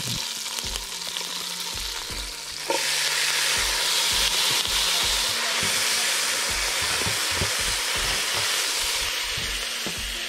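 Scallion, garlic and hot pepper frying in a pot over a wood fire: a steady sizzling hiss that gets louder about three seconds in.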